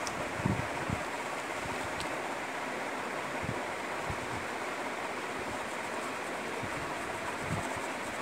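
Steady background hiss with a few soft low thumps, the strongest about half a second in.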